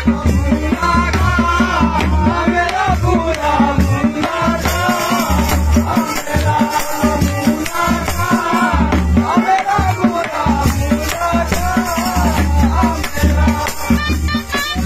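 Live Pahari nati folk music: a dhol drum beating steadily under a wavering melody line.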